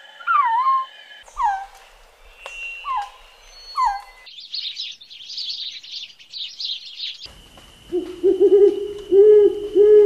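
Bird sounds in three parts: a string of repeated falling whistled calls, then a few seconds of rapid high chirping, then an owl giving several low, wavering hoots in the last couple of seconds.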